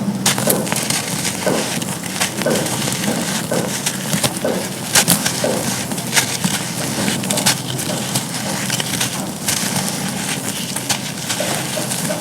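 Dry chunks of charcoal being crumbled, a dense run of gritty crunching with sharp cracks and snaps.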